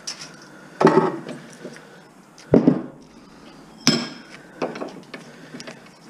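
Metal clanks and knocks from working copper windings out of electric motor stators with a homemade extractor tool: three loud strikes about a second and a half apart, some with a short metallic ring, then a few lighter knocks.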